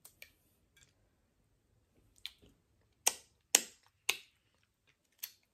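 Mouth sounds of eating a sauce-covered boiled shrimp: short, sharp wet smacks and sucks, a few faint ones at first, then three louder ones in quick succession about three to four seconds in, and one more near the end.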